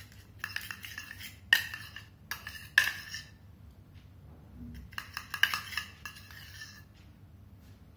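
Metal spoon stirring and scraping a thick paste of crushed blush and glycerin in a small stainless steel bowl, with a few sharp clinks of spoon on steel. It comes in two spells, with a pause in the middle.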